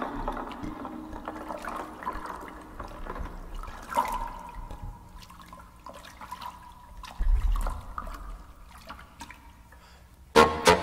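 Hands splashing and swirling water in a large clear bowl played as a percussion instrument, with trickling and dripping and small clicks. Near the end, loud sharp beatbox hits break in.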